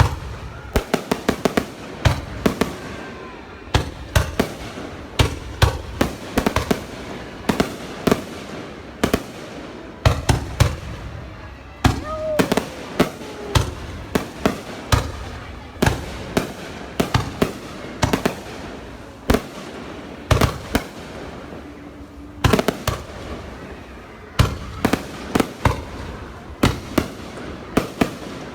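Fireworks going off in rapid clusters of sharp bangs, one volley after another with short gaps.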